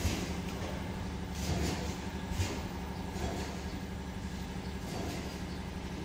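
Electric airless paint sprayer's pump motor running with a steady, rapidly pulsing hum, with a few short clicks about a second and a half and two and a half seconds in.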